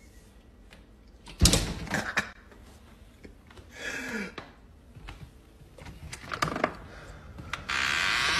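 Glass storm door banged and rattled: a loud knock with a short ring about a second and a half in, then lighter knocks, and a couple more about six and a half seconds in.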